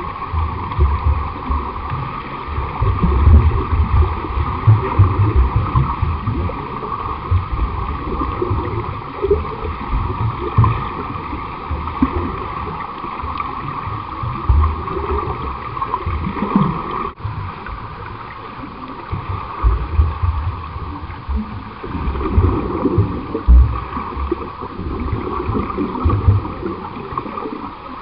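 Water churning and splashing from swimmers in a pool, with uneven low thumps and a brief break about seventeen seconds in.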